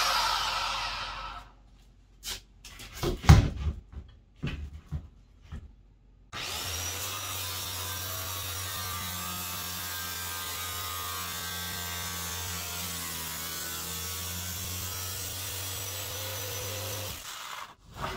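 Circular saw with a stainless-steel-cutting blade cutting through the thin stainless steel skin of a walk-in cooler wall, its volume turned down. A loud burst at the start fades away, a few knocks follow, then from about six seconds in there is a long steady cut of about eleven seconds that stops abruptly near the end.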